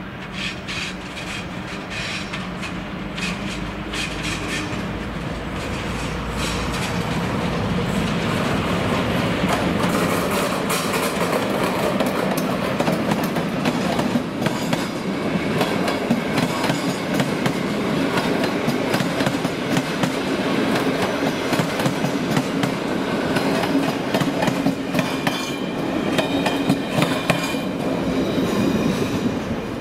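Locomotive-hauled Intercity passenger train passing close by: a steady rumble of the coaches with wheels clattering over rail joints, growing louder over the first ten seconds or so.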